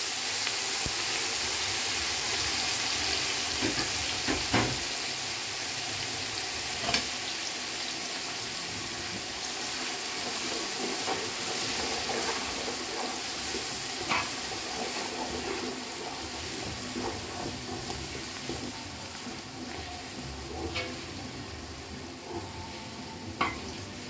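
Chopped spring onion and onion sizzling steadily as they fry in oil in an aluminium pot, the hiss easing slightly over time. A stirring spoon knocks lightly against the pot a few times.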